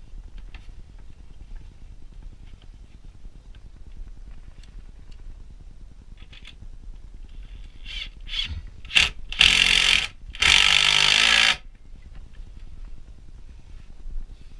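Bosch cordless impact driver driving a screw into wood to fix a pipe clip: a few short bursts on the trigger, then two runs of about a second each.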